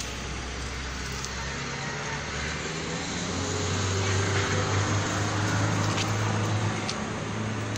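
Steady low mechanical hum over a hiss of background noise. About three seconds in, the hum shifts higher and gets louder.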